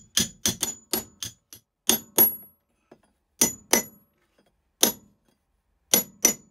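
Claw hammer tapping in the last small nails to fix the carpet edge down: about fourteen sharp blows with a metallic ring, in quick pairs and triples with short pauses between.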